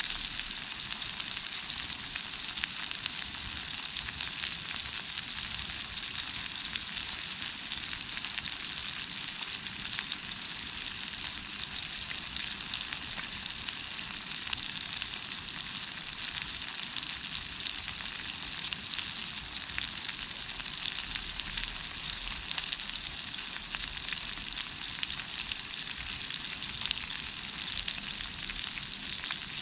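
Formed meat sizzling steadily as it grills over a campfire, with fine crackling throughout.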